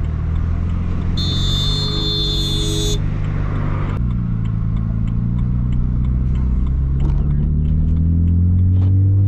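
BMW Z4 convertible's engine and exhaust heard from the open cabin, running under way. Its note steps about four seconds in and then rises slowly through the second half as the car pulls.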